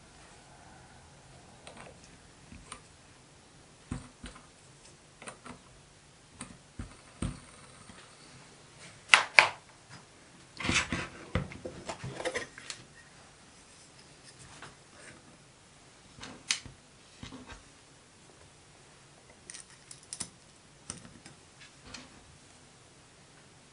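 Small cast-metal parts of a model bandsaw being handled and fitted together by hand: scattered light clicks and knocks of metal on metal and on the bench. The loudest are a sharp pair about nine seconds in and a clatter of knocks about eleven to twelve seconds in.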